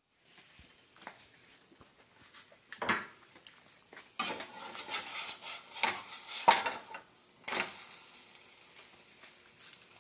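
A pancake sizzling in a metal frying pan while a spatula scrapes and knocks against the pan as the pancake is flipped. The knocks are loudest from about four to seven and a half seconds in, then the sizzle fades.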